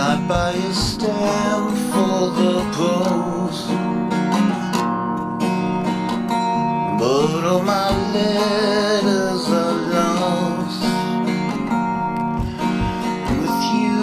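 Acoustic guitar with a capo, strummed and picked steadily, with a man's voice singing along at times.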